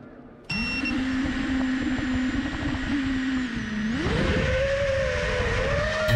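FPV quadcopter's four brushless motors (Hypetrain 2306 2450kv) with spinning props, heard through the onboard camera. They start suddenly about half a second in and hold a steady idle hum. About four seconds in the pitch rises quickly as the throttle is raised for takeoff, then holds higher.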